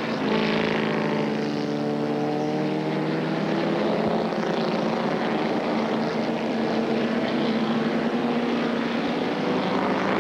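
A pack of production-based race cars, Ford Mustangs among them, running at race pace. Their engines blend into a steady, many-note drone whose pitch drifts slowly as the cars pass through the corner.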